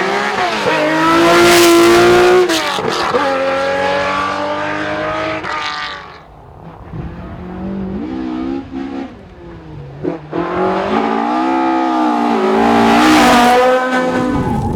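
Rally car engines revving hard and dropping in pitch at gear changes as cars drive past on a stage. The engine is loudest as a car passes close about two seconds in and again near the end, with a quieter stretch in the middle.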